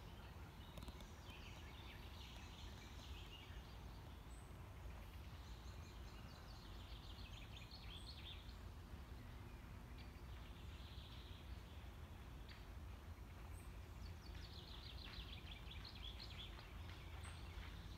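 Quiet park ambience: small birds singing in bursts of quick chirps, over a low, steady background rumble. A single thin, high note sounds now and then, about every four seconds.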